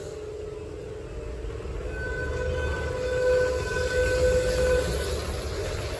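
Sydney Trains T set (Tangara) electric train standing at the platform with its doors open: a low steady rumble, joined about two seconds in by a steady whining tone that lasts about three seconds.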